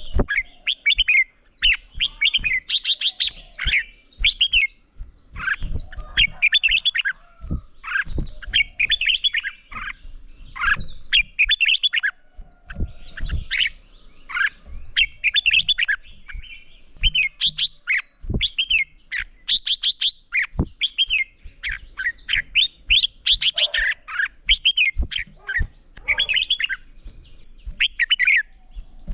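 Red-whiskered bulbuls singing in their competitive duel song, short bright warbled phrases repeated every second or two, with frequent short clicks between them.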